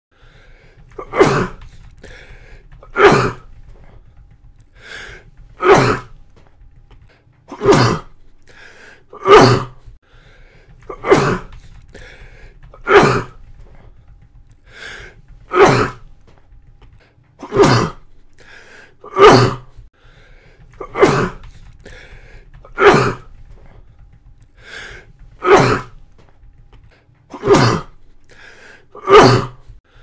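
A person coughing: single sharp coughs repeated about every two seconds, around fifteen in all, with fainter breath sounds between them.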